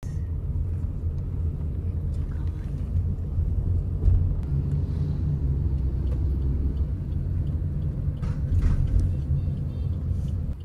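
Low, steady rumble of road and engine noise inside a moving car, with a brief jolt about four seconds in and a short louder noisy burst around eight and a half seconds.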